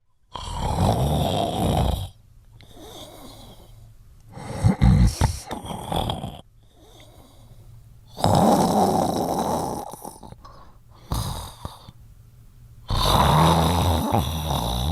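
A sleeping person snoring loudly. Three long rasping snores, each about two seconds, come roughly every five to six seconds, with quieter breathing between and a rough, sputtering burst a few seconds in.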